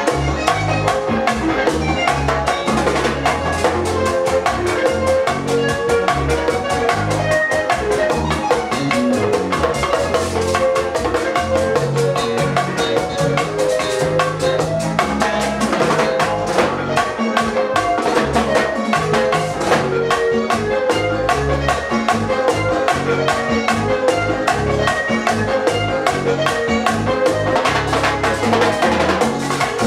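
Live Latin dance band playing at full volume: acoustic-electric guitar, keyboard, a metal güira scraped in a steady rhythm, and drums struck with sticks.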